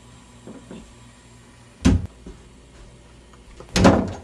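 A sharp knock about two seconds in, then a louder thud near the end as a hinged interior door is pushed shut.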